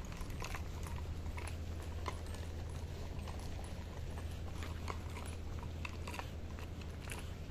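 Footsteps on a paved walkway, irregular light clicks and scuffs a few times a second, over a steady low hum.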